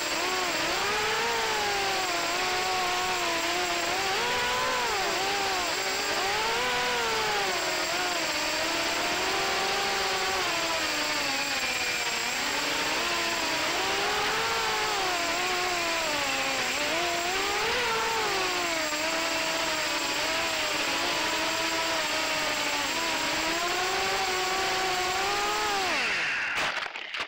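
FPV racing quadcopter's brushless motors and propellers whining, heard through the onboard camera, the pitch rising and falling constantly with the throttle as it flies. A faint steady high tone runs underneath, and the sound cuts off abruptly near the end.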